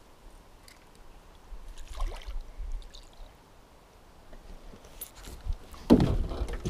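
Faint water splashing and lapping against a small boat while a hooked smallmouth bass is played at the surface. About six seconds in there is a sudden loud knock and rattle as the landing net is grabbed from the boat floor.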